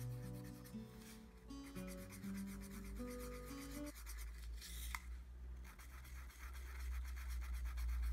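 Felt-tip marker scribbling on paper wrapped round a cardboard tube, a quick run of scratchy rubbing strokes while colouring in. Background music with held notes plays under it for the first four seconds or so, then stops.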